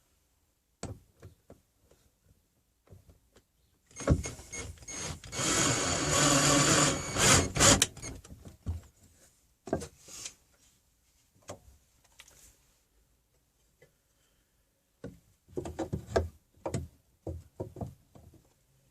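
A power drill runs for about four seconds, driving a screw into wood, ending in a few short pulses. Scattered knocks and clatters of wood and tools come before and after.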